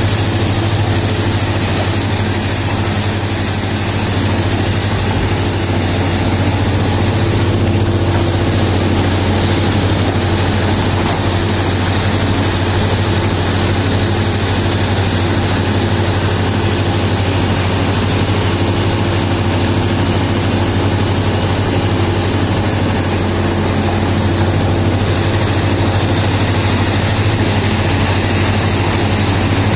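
Large hydraulic mining excavator's diesel engine running steadily, a deep continuous drone with a thin high whine wavering above it.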